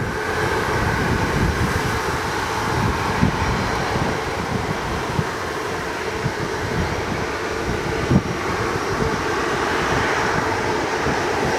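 Storm wind gusting and buffeting the microphone, with a thump about eight seconds in, while the jet noise of an approaching Boeing 747-8F's engines grows toward the end.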